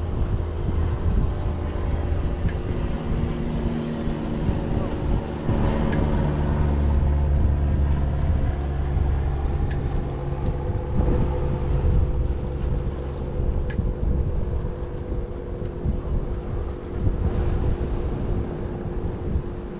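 An engine running steadily, swelling in the middle and easing off again, with wind buffeting the microphone and a few short sharp ticks.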